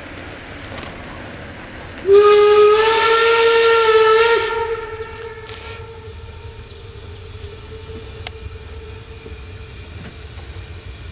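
Steam locomotive whistle giving one long blast of about two and a half seconds, starting about two seconds in and then dying away. It is the warning for the unguarded level crossing ahead. Under it, the approaching steam train makes a steady rumble and hiss.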